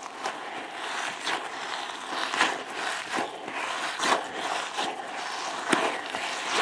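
Rubber T-Rex squishy toy squeezed and kneaded by hand, crunching with irregular crackles and a few louder snaps. The crunch comes from the tiny styrofoam balls it is stuffed with.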